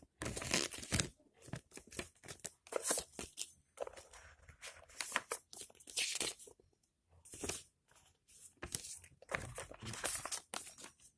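Paper and plastic packaging from a smartphone box rustling and crinkling in irregular bursts as the contents are handled and unwrapped.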